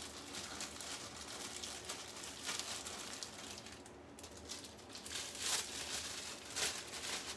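Plastic bag crinkling and rustling on and off as leftover bacon is bagged.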